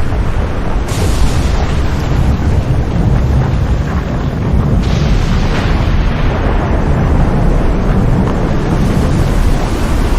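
Epic orchestral trailer music with a heavy, booming low rumble of drums and brass, and two cymbal crashes, about a second in and about five seconds in, each ringing out slowly.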